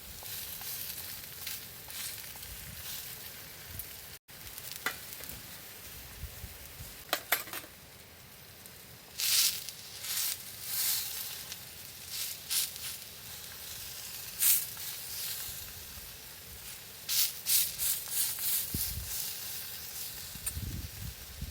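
Food sizzling and frying on an iron griddle set directly on campfire embers: a steady hiss with irregular pops and crackles of spitting fat.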